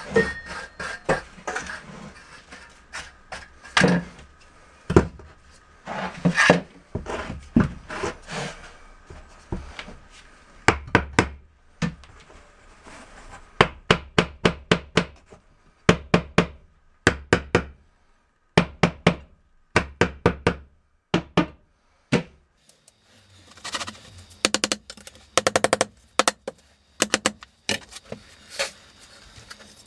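Repeated sharp taps and knocks of hand tools tamping deck mud, the sand-cement mortar bed, along the edge of a shower floor. The strokes come in quick runs of several a second, with short pauses between.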